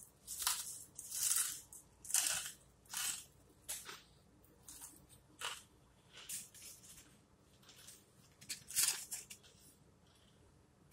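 Close-mouthed chewing and crunching of a tortilla taco filled with potato chips: a run of irregular crisp crunches, loudest in the first couple of seconds and again near the end.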